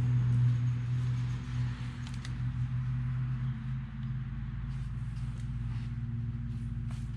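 Steady low machine hum with a few faint light clicks, as of small metal parts being handled.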